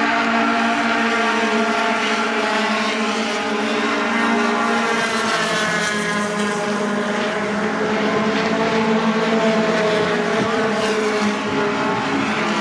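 Racing pickup trucks' engines running hard at speed, a loud continuous engine note whose pitch slides down and up as the trucks pass.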